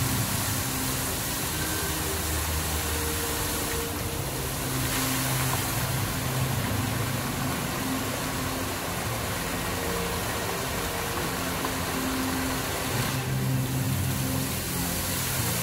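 Fountain water jets spraying and splashing down into the pool: a steady rushing hiss that swells about four seconds in and again near the end, with a low hum underneath.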